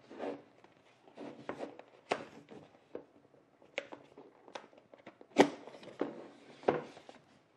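Cardboard box and packaging being handled: a string of light taps, knocks and rustles, with two sharper knocks in the second half.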